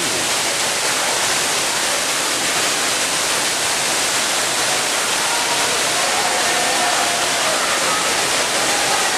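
Steady rushing of falling water, an even loud hiss that does not let up.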